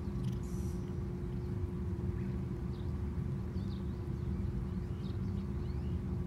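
Outdoor ambience: a steady low rumble with a constant hum, and a few faint, short high chirps scattered through it.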